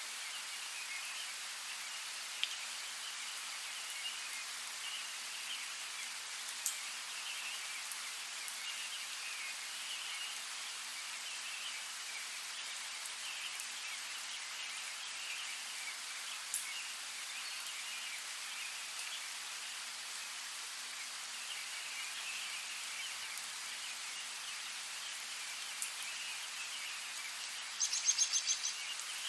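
Steady rain with a few sharp drips, under a continuous chorus of small chirping calls. Near the end comes a short, fast trill.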